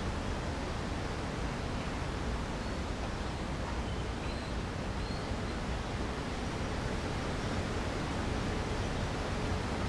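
Steady rushing background noise, heaviest in the low end, with a few faint high chirps about halfway through.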